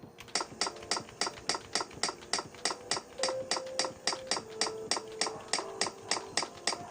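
Keys of a Logitech G110 gaming keyboard pressed one after another, about four a second. Each press is answered by a short sound from an online keyboard tester, the sign that the key now works after the repair.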